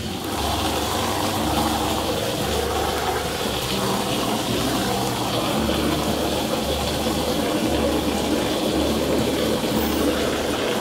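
Water from a garden hose running steadily into a plastic stock tank.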